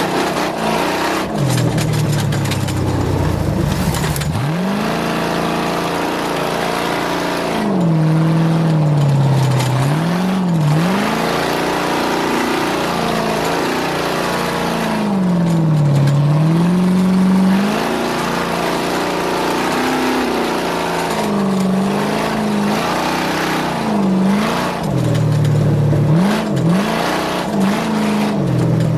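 A racing engine revving, its pitch repeatedly dropping and climbing back up as the vehicle slows and accelerates again, several times in a row.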